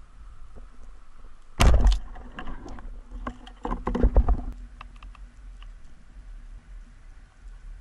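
Speargun firing underwater with a loud sudden crack about one and a half seconds in, followed by a run of knocks and clicks from the shaft and gear for a few seconds, over faint scattered ticking of the sea.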